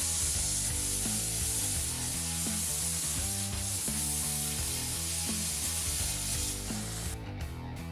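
Steady, sizzling hiss of spark-throwing metal fabrication work on a truck frame, which stops about a second before the end, over background music with a steady beat.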